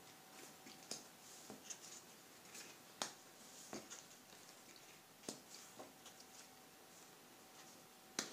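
Tarot cards being drawn from the deck and laid down on a cloth-covered table: a few faint, scattered taps and soft slides of card on card, over a faint steady tone.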